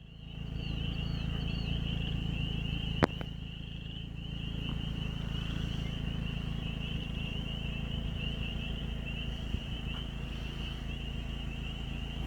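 A steady, high-pitched, finely pulsing trill from a chorus of calling wild creatures, over a low steady rumble. A single sharp click about three seconds in.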